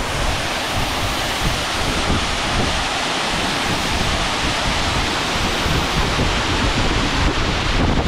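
Waterfall: a steady rush of falling water, with low buffeting on the microphone.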